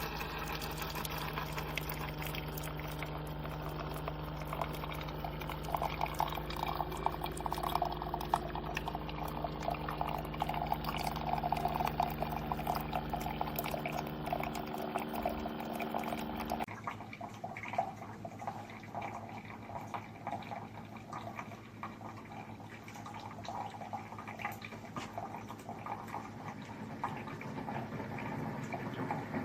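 Coffee maker brewing: a steady motor hum with coffee streaming and splashing into a cup. The hum cuts off abruptly about two-thirds of the way through, and the liquid sound goes on more faintly.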